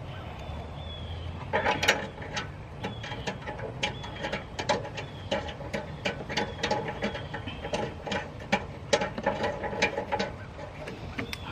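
Metal hand tools clicking and clinking in irregular, sharp ticks as a wrench works a bolt down in a car's engine bay.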